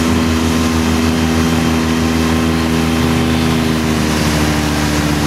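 Yamaha 9.9 outboard motor running steadily under way, pushing an inflatable boat, over a steady rush of wake water and wind. The engine note eases slightly in pitch about four seconds in.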